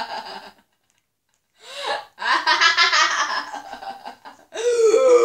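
Loud laughter in rapid pulses that breaks off about half a second in, with a second of silence, then a second burst of laughter; near the end a long, wavering, high-pitched wail starts.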